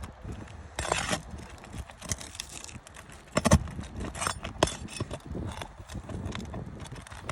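Irregular knocks, taps and short scrapes of hand work on shingles, with a sharp louder knock about three and a half seconds in.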